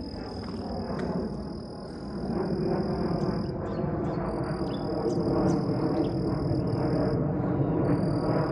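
Jet airliner, a Qantas plane, flying over with its engine noise growing steadily louder.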